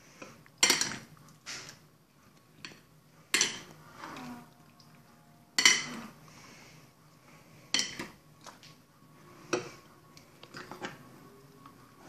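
A metal spoon knocking against the sides of a glass salad bowl while a wet salad is tossed, making sharp clinks every second or two.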